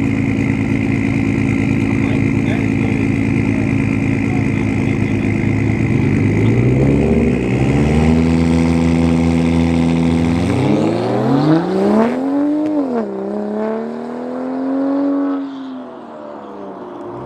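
Race car engine running steadily, then revving hard as the car accelerates, its pitch climbing in steps and swinging up and down before fading near the end.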